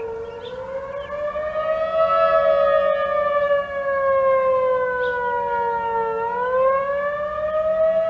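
Outdoor tornado warning sirens, a Federal Signal Thunderbolt 1000 and a 2001 among them, sounding together during a test. The pitch climbs for about two seconds, slides slowly down until about six seconds in, then climbs again near the end: a slow, sluggish wail, heard against steadier siren tones.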